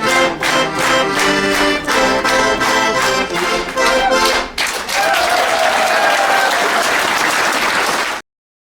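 Accordion music with a steady beat. About four and a half seconds in it gives way to audience applause, which cuts off suddenly near the end.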